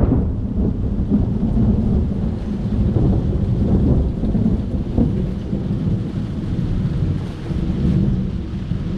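Thunder rumbling steadily with rain falling.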